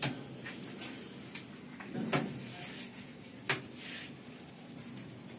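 Three sharp knocks at uneven gaps, with soft scraping between them, while wet cement mortar is packed by hand around a CPVC pipe fitting in a wall chase.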